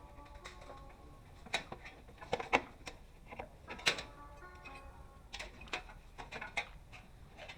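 Background music of steady held notes, with sharp clicks and taps scattered through it; the loudest come about two and a half and four seconds in.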